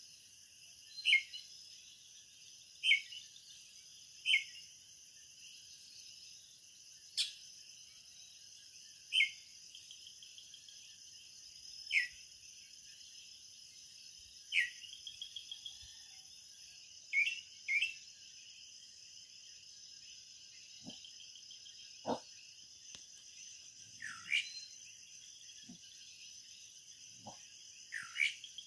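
Coquí frogs calling their short two-note "co-quí" call, repeated every one to three seconds, over a steady high-pitched night insect chorus.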